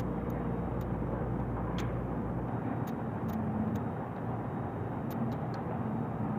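Steady background noise of the kind that street traffic makes, with a few faint short clicks.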